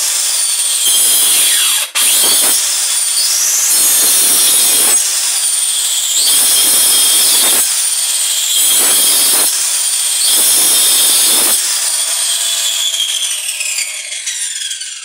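Handheld circular saw running at full speed and making about six short, shallow cuts into a wooden board, its blade depth set low; the motor dips in pitch under each cut and speeds back up between cuts. In the last few seconds it is switched off and winds down.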